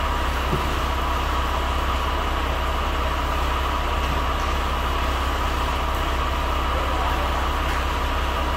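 Heavy truck engine idling steadily, a constant low rumble.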